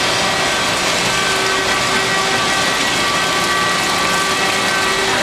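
Large Mattison surface grinder running and grinding a part on its magnetic angle fixture: a steady rushing noise with faint high whines that come and go.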